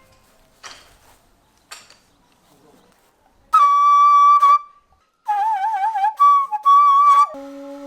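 Bamboo flute played: after a couple of faint knocks, a loud held high note, then a lower note with a wavering vibrato, then back up to short high notes.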